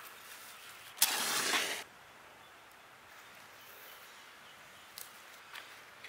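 Loose, dry soil dumped from a digging tool onto the ground: a short, loud gritty rush about a second in, lasting under a second, then a couple of faint ticks near the end.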